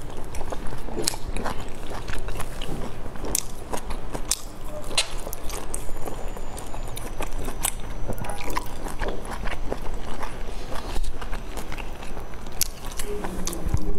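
Close-miked chewing of soft dumplings, with many small wet mouth clicks at an irregular pace.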